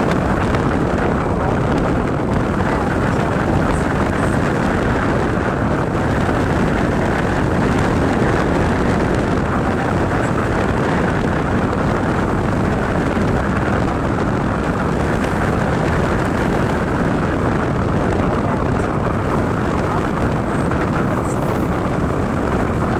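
Steady rush of wind and road noise on the camera's microphone from riding a motorcycle at speed, with no clear engine note standing out.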